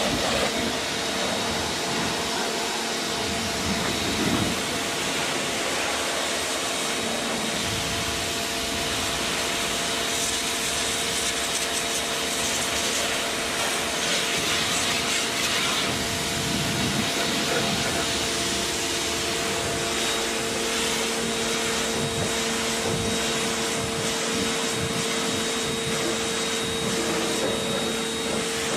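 Bossman BPC-4830 electric pressure washer running steadily, a constant motor whine over the hiss of its water jet.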